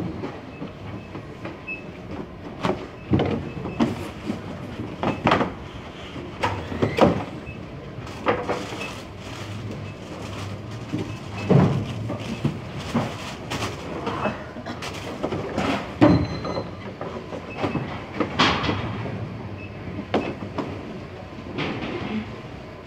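Cardboard boxes and packing goods being handled on a packing table: irregular knocks, thumps and rustles, over a steady low rumble.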